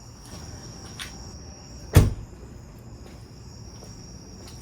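A single sharp thump about two seconds in, over a steady high-pitched whine.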